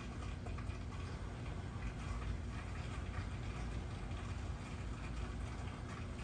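Aquarium aeration running: air stones and a sponge filter bubbling, with a steady low hum and many small ticks from the bubbles.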